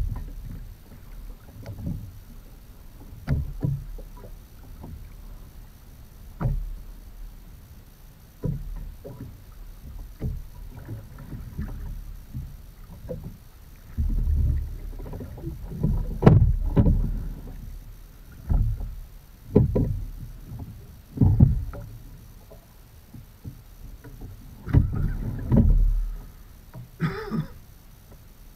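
Edon TS515 sculling boat being rowed: the oars dip and pull through the water with splashes and dull knocks at uneven intervals, a few strokes louder than the rest.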